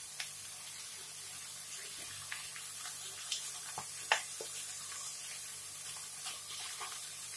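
Pork frying in red curry paste in a pan: a steady, quiet sizzle, with a metal spoon stirring and scraping in short clicks and taps, the sharpest about four seconds in.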